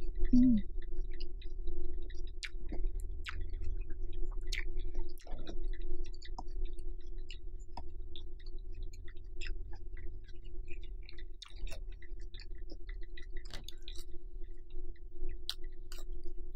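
Close-miked chewing of a grilled pork and lettuce wrap: scattered wet mouth clicks and crunches over a steady low hum.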